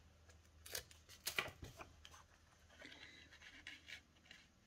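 Faint paper-craft handling: a few short crackles as the liner is peeled off double-sided adhesive tape, then soft rustling and scraping as a cardstock tab is laid against the album page.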